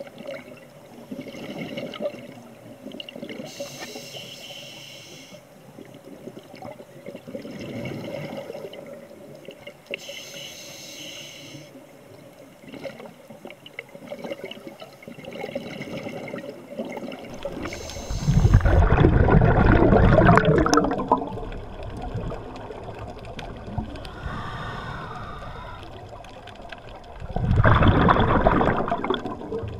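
Scuba diver's exhaled breath bubbling out of the regulator, recorded underwater: two loud bubbling exhalations in the second half, about nine seconds apart, over quieter watery background noise.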